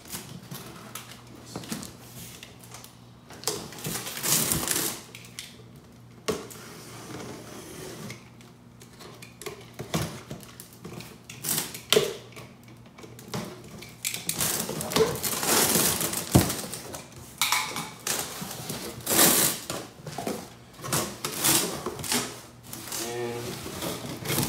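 A box cutter slicing the packing tape along a cardboard box, then cardboard flaps being pulled open and bubble wrap rustling, as a series of irregular scrapes and crackles.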